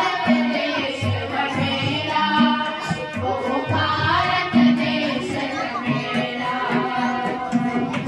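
A group of children singing a Hindi patriotic song in unison, accompanied by tabla and harmonium.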